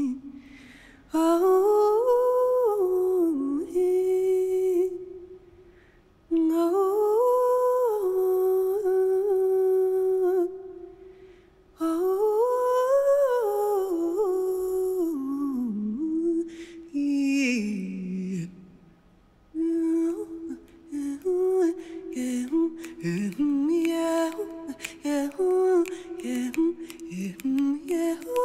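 A woman humming a wordless melody into a microphone with no accompaniment: three long phrases that rise and fall, then a lower falling phrase, and shorter, choppier notes in the last third.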